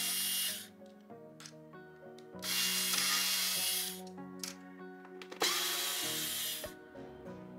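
Cordless electric screwdriver running in three short bursts of about a second each, one at the start, one near the middle and one later on, backing screws out of the robot vacuum's plastic base. Background music plays underneath.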